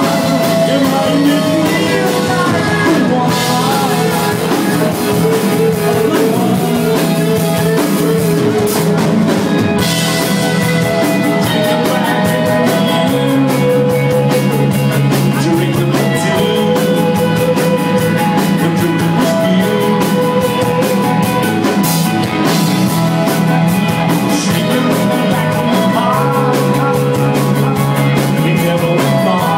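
Live rock band playing loud: a man singing into a microphone over electric guitar and drums, heard from within the audience.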